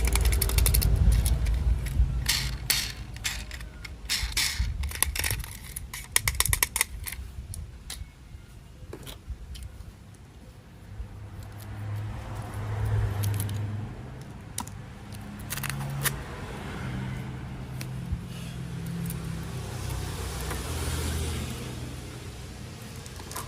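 Clicking and rattling of plastic toy train parts being handled, thick for the first several seconds and then thinning to a few clicks. Through the second half a low, uneven hum comes and goes.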